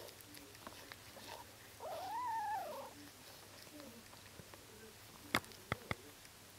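A newborn Bengal kitten gives one short mew about two seconds in, its pitch rising and then falling. Near the end come three sharp clicks in quick succession.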